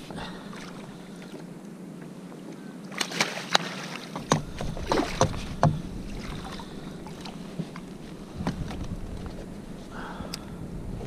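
A landing net holding a freshly caught cod is lifted out of the sea into a kayak: a cluster of splashes and sharp knocks comes between about three and six seconds in, over a steady wash of water.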